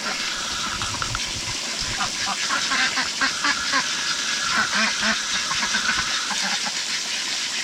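A group of ducks quacking, many short calls overlapping over a steady rushing background.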